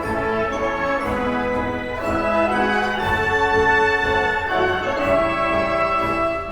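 Youth symphony orchestra playing a concert march live, with the brass to the fore on held chords.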